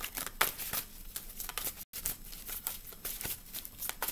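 A deck of tarot cards being shuffled by hand: a quick, irregular run of soft flicks and clicks as the cards slide over each other. The sound cuts out completely for a moment about halfway through.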